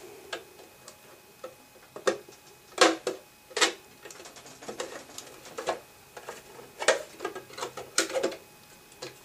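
Blue plastic case of a furnace control board being worked apart by hand, its drilled-out posts letting go: irregular clicks and snaps of hard plastic, the cover coming free near the end.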